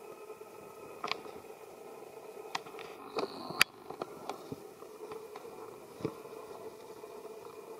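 A thin plastic bag rustling and crinkling as food is handled, with scattered sharp clicks, the loudest about three and a half seconds in, over a steady background hum.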